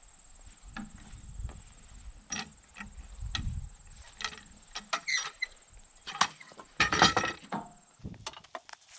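Irregular wooden knocks and dull thumps of a heavy black oak log being rolled over on a sawmill bed. The loudest cluster of knocks comes about seven seconds in.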